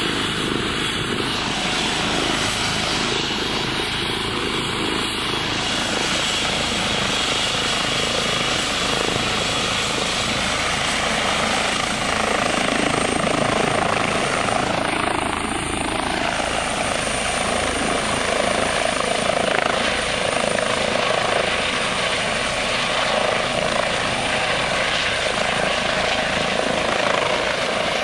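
Air ambulance helicopter running on the ground with its turbine engine and rotor turning, a steady din with a high turbine whine. From about halfway through, the whine rises in pitch as it powers up and lifts off.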